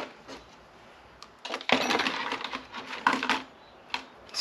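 Clear plastic clamshell blister pack being pried open, its stiff plastic crackling and snapping for about two seconds after a quiet start, with one more click near the end.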